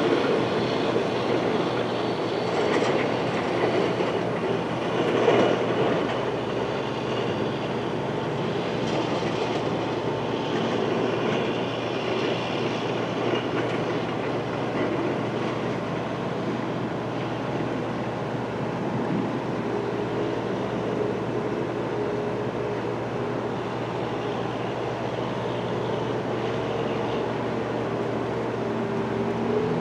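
Amtrak passenger train running on a siding: a steady rumble of wheels on the rails, with a few knocks in the first ten seconds and a faint wavering tone near the end.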